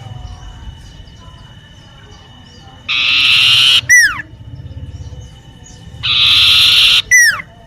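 Common iora (cipoh) singing its chattering 'ngeriwik' song: two loud buzzy trills, each followed by a quick falling whistle.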